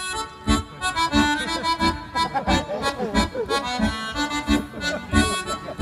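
Accordion playing a simple folk melody over a steady beat, amplified live.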